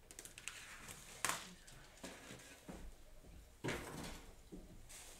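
Paintbrush scrubbing paint across paper in a series of short scratchy strokes, with a sharp knock about a second in.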